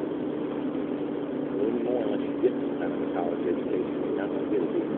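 A steady low hum with faint, indistinct voices, muffled as if heard through cloth.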